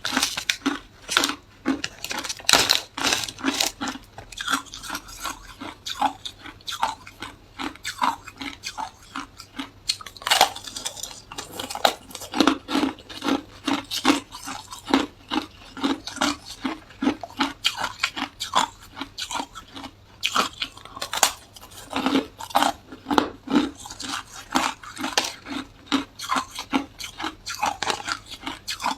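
A person chewing ice: a steady run of sharp, crisp crunches, about two to three a second.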